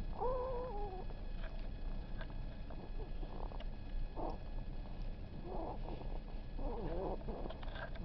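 Snoring in sleep: several rough snoring breaths about a second or so apart, after a short falling pitched snort-like sound at the start.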